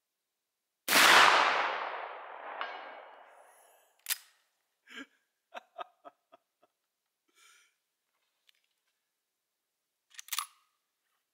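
A single shot from a black-powder .44-40 lever-action rifle (a reproduction 1873 Winchester), a sharp crack whose echo dies away over about three seconds, with a faint ringing note coming in about a second and a half after the shot. Then comes a run of short, sharp metallic clicks and clacks, with a last small cluster near the end.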